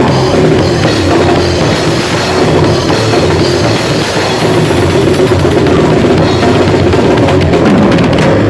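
Grindcore band playing at full volume in rehearsal: a fast, pounding drum kit with bass drum and snare under loud guitars.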